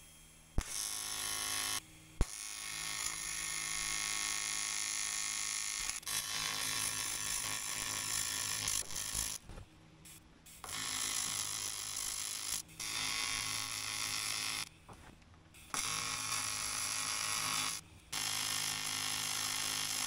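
AC TIG welding arc on aluminium, a steady electric buzz that runs in several stretches of a few seconds each and cuts off sharply between them as the arc is broken, while a hose tail is welded onto an aluminium tank.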